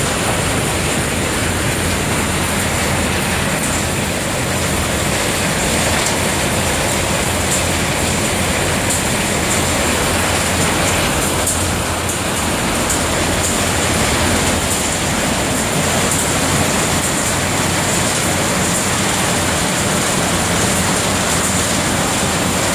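Walnut huller running: a loud, steady mechanical clatter and rumble as its conveyors and grates carry the walnuts along.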